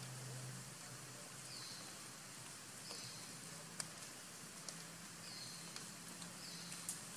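Faint outdoor ambience: a short high chirp repeats four times, one to two seconds apart, with a few soft clicks and a low hum underneath.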